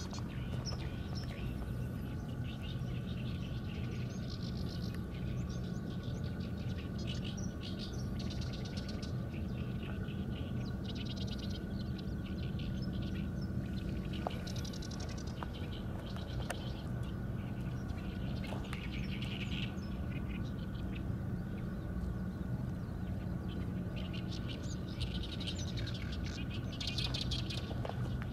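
Small birds chirping in quick trills again and again, over a steady low hum.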